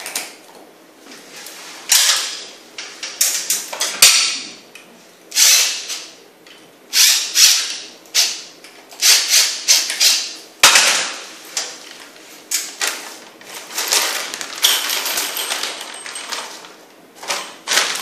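Plastic straps of Toggler toggle-bolt anchors being snapped or cut off flush with the drywall: a string of sharp, irregular cracks and snaps, about a dozen, with short pauses between them.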